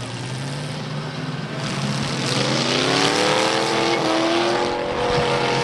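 Demolition derby car engines running, one revving hard from about two seconds in, its pitch climbing and then held high at full throttle.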